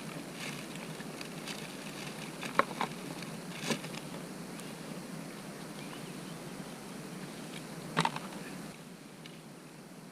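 Steady low background hiss with a few light clicks and taps, and one sharper click about eight seconds in.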